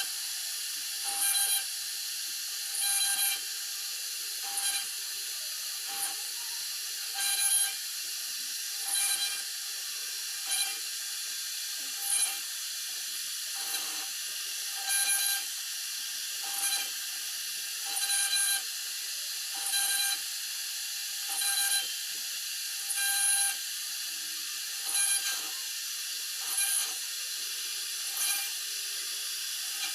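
CNC router spindle whining steadily as its bit cuts into a lasani (MDF) sheet. The cutting noise swells in short surges about every one and a half seconds.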